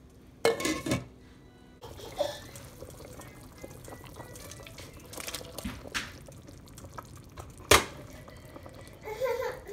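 A metal pot lid clanking and ringing as it is lifted off a stainless steel soup pot about half a second in, then simmering broth bubbling with splashes as potato chunks are tipped in, and a sharp clack near the end.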